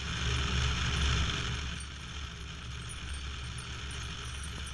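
Steady wind and road noise from a vehicle driving along, heard on a camera mounted on the outside of the vehicle: an even rush with a low rumble, a little louder in the first second.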